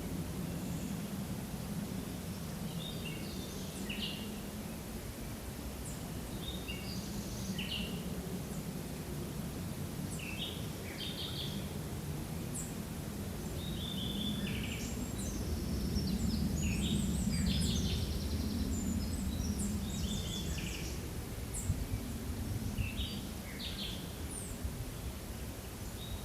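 Forest ambience: many short bird chirps and calls, of several kinds, scattered throughout over a steady low background rush that swells a little midway.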